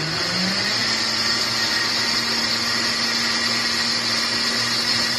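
KitchenAid K400 blender running on its smoothie setting, blending a thick shake of frozen raspberries, ice cream and milk. The motor's pitch rises during the first second as it speeds up, then it runs steady.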